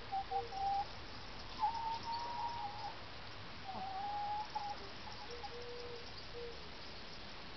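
Domestic hens calling in long, drawn-out whining notes, several in a row: short notes first, then longer ones, some higher and some lower in pitch.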